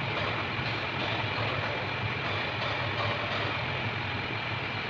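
Heavy truck engine running steadily: a low even hum with a thin steady whine above it.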